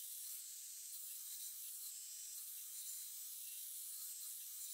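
Faint, thin hiss of a belt grinder surface-grinding a forged Damascus steel blade, with no motor rumble heard.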